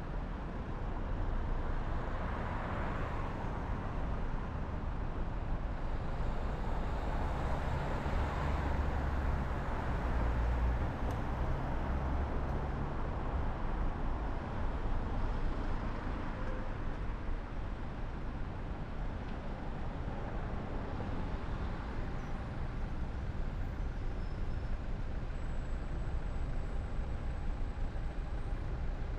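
Car driving in city traffic: steady road and tyre noise with a low engine rumble, strongest in the first half, then easing as the car stands at a junction with traffic idling around it.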